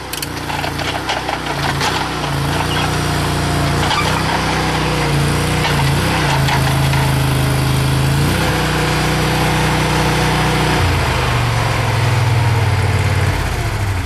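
Mini skid steer engine running loudly, its pitch shifting several times as the load changes, with scattered knocks in the first couple of seconds.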